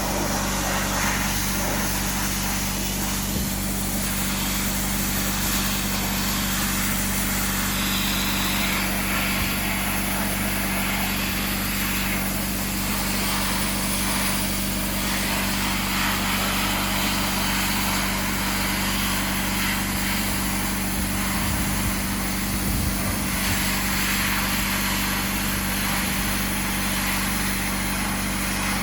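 Sandblasting: a steady hiss of air and abrasive from the blast nozzle, shifting in strength, over the constant drone of an engine-driven air compressor.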